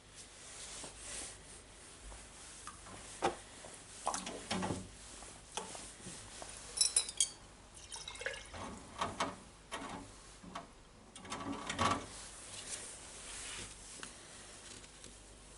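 Scattered light clicks, knocks and scrapes of small parts being handled, with a short run of ringing metallic clinks about seven seconds in.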